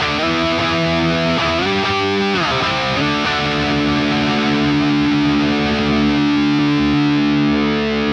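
Electric guitar played through the Tonocracy amp-modelling plugin, set to a high-gain amp with the drive pedal on and a Marshall-type cabinet: heavily distorted notes with a sliding change of pitch a little over two seconds in, then one long sustained chord ringing on.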